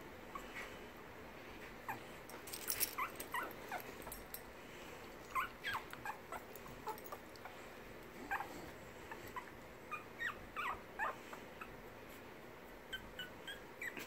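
Four-week-old Silky Terrier mix puppy whimpering in short, high squeaks, on and off.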